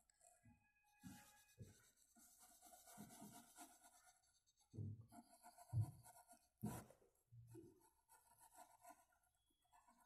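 Faint scratching of a colored pencil shading a square on a workbook page, with a few soft knocks about halfway through.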